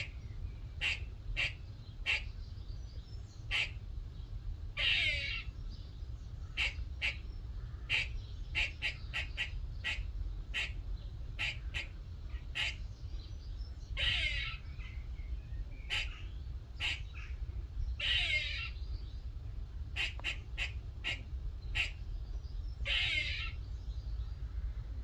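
Grey squirrel calling: repeated short, sharp barking chucks in quick runs, broken every few seconds by a longer rasping call of about half a second.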